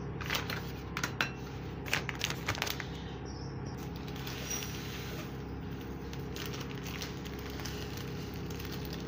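Ingredients handled on a tabletop: a few sharp clinks and knocks of ceramic bowls and plastic bags in the first few seconds. Later, flaxseed is poured from a plastic bag into a ceramic bowl, over a steady low hum.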